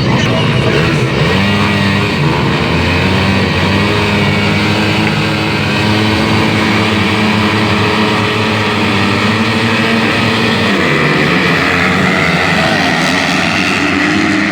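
Motocross dirt bike engines running and revving, the pitch rising and falling as the throttle opens and closes.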